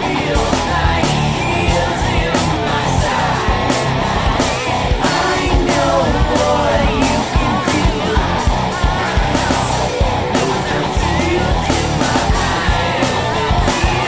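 Loud rock music with a driving drum beat and shouted or sung vocals.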